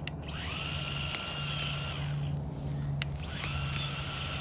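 Electric motor of an RC rally car whining as the car accelerates. The whine rises quickly, holds a steady pitch for about a second and a half, cuts off, then winds up again a little after three seconds in. There is a sharp click about three seconds in.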